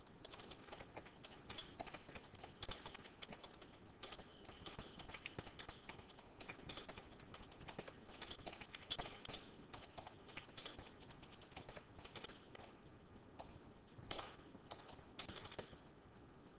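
Faint typing on a computer keyboard: irregular keystrokes, several a second, that stop shortly before the end.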